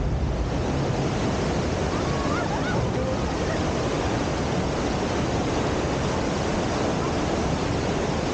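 Steady rush of churning water around a river rapids ride raft, heard from on board.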